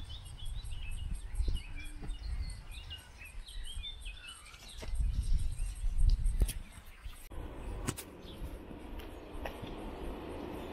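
Small songbirds chirping and twittering, with low rumbles of wind or handling on the microphone. After a cut about seven seconds in, a steady outdoor background hiss takes over.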